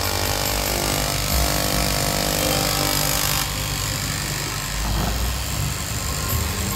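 Electric straight-knife cloth cutting machine (KM) running, its vertical reciprocating blade cutting through a stack of layered fabric. The higher part of the sound drops about three and a half seconds in.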